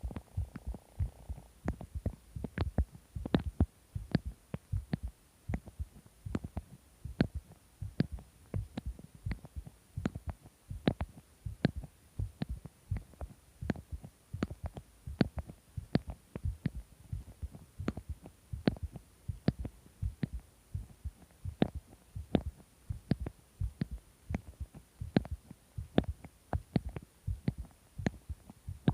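Human heartbeat recorded close to the chest: a steady, regular series of short, dull thumps. The uploader calls it a strange sound.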